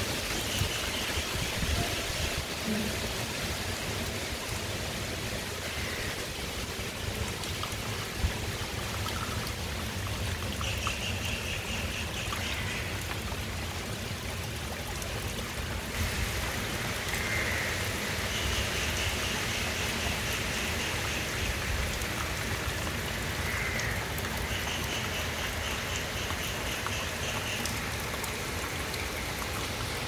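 Heavy rain pouring steadily onto waterlogged ground and leaves, a continuous hiss of water. A high pulsed trill comes and goes several times, each lasting two or three seconds.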